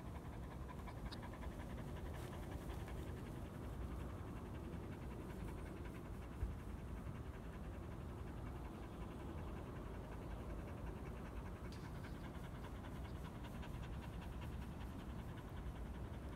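A mixed-breed dog panting steadily with its mouth open, close to the microphone. A single short bump sounds about six seconds in.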